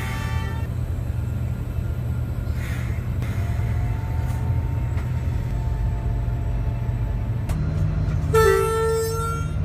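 A train runs with a steady low rumble and sounds its horn: a horn note fades out at the start, and a short, loud horn blast comes near the end.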